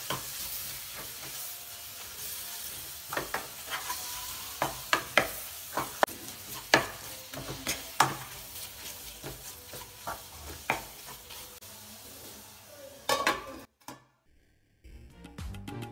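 Chopped tomatoes and onion masala sizzling in a nonstick frying pan while a spatula stirs, with repeated sharp scrapes and taps against the pan as the tomatoes are sautéed before covering. Near the end a stainless steel lid clatters onto the pan, and the sound cuts off suddenly.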